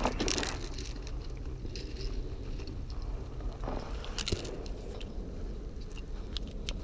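Footsteps on railway track ballast: gravel crunching underfoot in irregular bursts, loudest at the start and again about four seconds in, over a steady low rumble.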